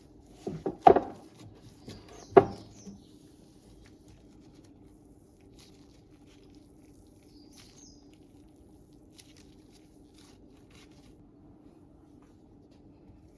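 A few sharp knocks, loudest about a second in and again about two and a half seconds in, then faint light taps over a low steady hum.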